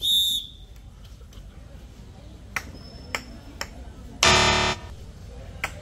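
Electronic game-style sound effects: a bright beep dies away right at the start, a few light ticks follow, then a loud buzz sounds for about half a second, about four seconds in.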